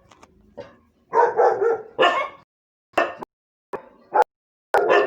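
Dog barking repeatedly in short, separate barks, some in quick runs of two or three, with a few sharp clicks between them.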